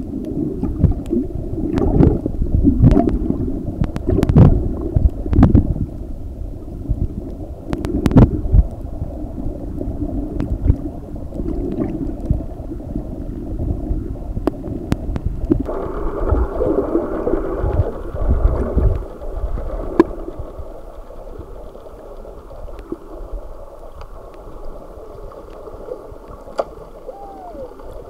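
Muffled underwater noise recorded through a camera underwater: water rushing and rumbling, with scattered sharp clicks. It grows quieter over the last several seconds.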